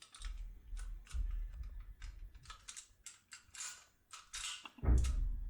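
Irregular metallic clicks and taps of lock cylinders and a force key being handled, with dull handling thumps; the loudest thump comes near the end.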